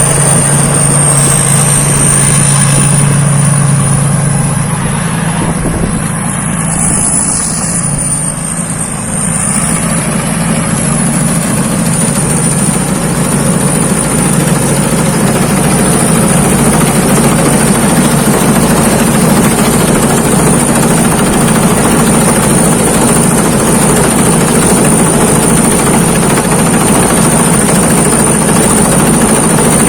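Rice combine harvester running steadily in the field, its engine and harvesting machinery giving a dense, unbroken mechanical din with a thin high whine over it. The sound dips briefly about six to ten seconds in, then returns to full level.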